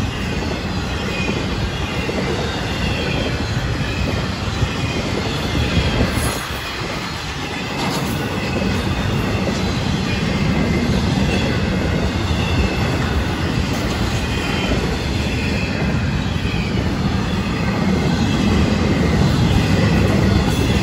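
Florida East Coast Railway freight train's intermodal well cars rolling past: a steady rumble and clatter of steel wheels on rail, with faint high wheel squeal. There is a short lull about seven seconds in.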